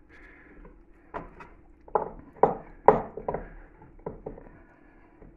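Hands handling a raw whole chicken in a metal roasting tin, giving a run of short knocks and slaps, about eight in three seconds, loudest around the middle.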